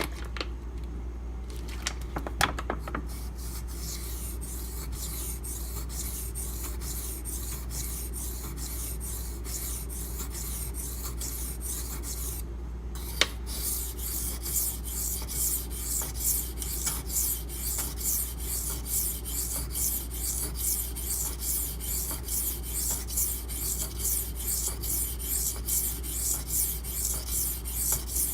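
A steel knife blade (8Cr13MoV) being ground back and forth on a coarse 400–500 grit water stone, a scratchy rasping, with a few sharp clicks in the first half. From about halfway through, the strokes settle into an even rhythm of about two a second. This is the grinding that raises a burr along the edge.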